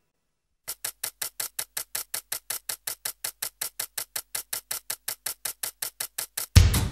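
Opening of a music track: after a brief silence, an even electronic ticking about six times a second, then the full band with drums comes in near the end.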